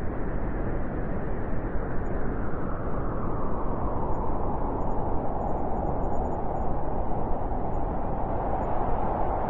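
Blizzard wind blowing steadily as a dense rushing, with a howling note near one pitch growing stronger in the second half.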